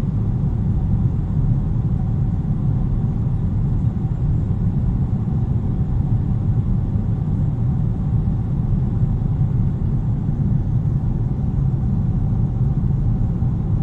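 Airliner cabin noise: the jet engines and airflow make a steady low rumble with a faint constant hum above it, unchanging throughout.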